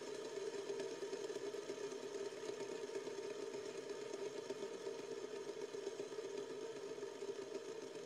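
A glow-in-the-dark LED fidget spinner spinning freely on its bearing, a steady whirr near the end of its spin.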